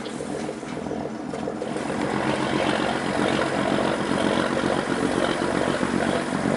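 Boat engine running steadily, growing louder about two seconds in.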